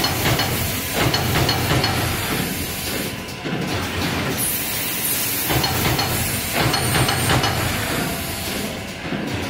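Automated card punching machine running: a steady mechanical noise with a hissing rush that comes and goes, dropping away twice.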